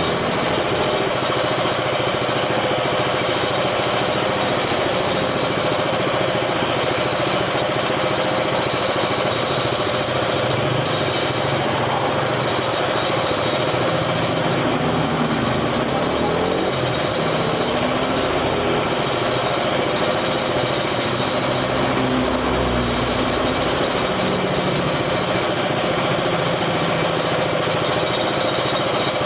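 Air compressor running steadily, supplying a paint spray gun, with the hiss of compressed air and paint spraying from the gun.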